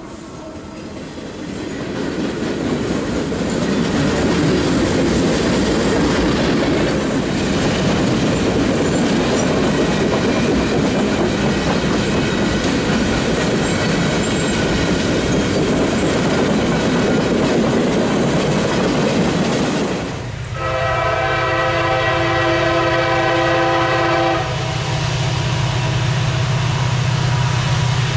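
Loaded flatcars of a freight train rolling past close by, wheels clattering on the rails, for about twenty seconds. Then the sound changes abruptly to a diesel locomotive's air horn sounding one long chord for about four seconds over a low steady hum.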